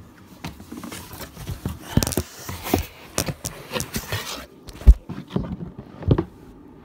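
Cardboard box flaps rustling and scraping as a bowling ball is lifted out of its shipping box, with irregular handling knocks. A sharp thump just before five seconds in is the loudest sound, with another about a second later.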